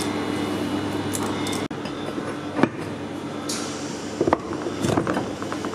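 Hand-tool work on a blackened stainless-steel part: a wrench turned on the part clamped in a cast-iron bench vise, giving sharp metallic clicks and knocks about two and a half seconds in and several more after four seconds. A steady hum runs underneath.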